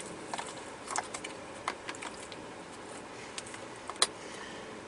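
Scattered light clicks and ticks of a wiring harness being handled and tucked against a plastic console lid, over a steady hiss. The sharpest click comes about four seconds in.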